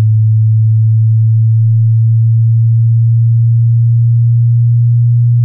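Pure sine-wave bass test tone, a loud, steady low hum near the top of a 36–123 Hz sweep, its pitch creeping slowly upward.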